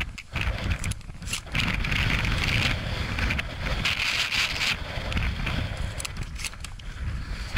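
Wind buffeting the microphone while someone walks through wet moorland grass, clothing and gear rustling with each step. Two louder stretches of rustling come about a second and a half in and about four seconds in.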